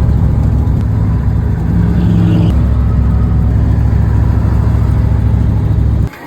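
A vehicle engine running steadily at road speed, a loud low drone. It cuts off suddenly near the end.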